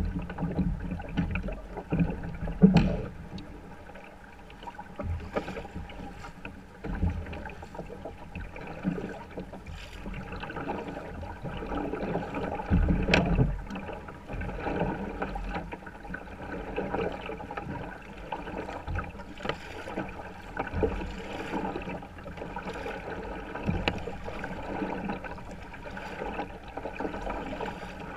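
Water sloshing against a plastic kayak hull and splashing from double-bladed paddle strokes as the kayak is paddled across calm sea. The sound is uneven, with louder splashes and knocks about three seconds in and again about thirteen seconds in.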